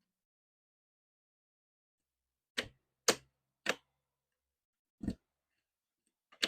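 Replacement RV door deadbolt being worked with its key: three sharp metallic clicks about half a second apart as the bolt is operated, then a duller knock about two seconds later.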